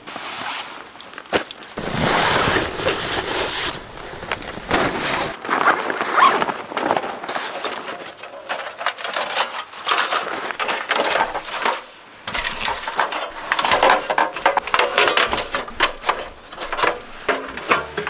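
Gear being handled: a few seconds of dense rustling, then scattered clicks, scrapes and zipper sounds as a stove bag is opened and the thin metal panels of a folding titanium wood stove clink and scrape as they are unfolded.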